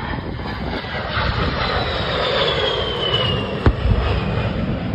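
A-10 jet flying past with a steady roar and an engine whine that falls in pitch as it goes by. About three and a half seconds in, one sharp bang of an airshow pyrotechnic explosion, followed by low rumbling.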